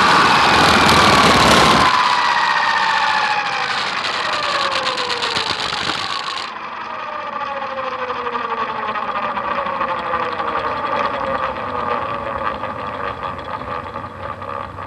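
Hurricane 550 RC helicopter winding down on the ground: a motor and rotor whine made of several pitches, all falling steadily. A loud rushing noise drops away about two seconds in, and the whine slowly fades.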